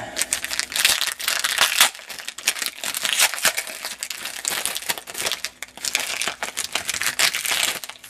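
Plastic wrapper of a trading card pack being torn open and crinkled by hand: a dense, irregular crackling.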